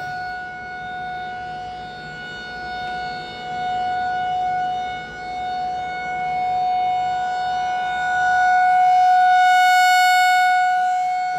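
Outdoor tornado warning siren sounding one steady, unchanging tone, swelling and fading in loudness and loudest a little before the end.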